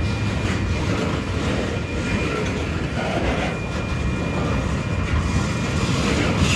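Freight train cars rolling past at close range: a steady rumble of steel wheels on the rails.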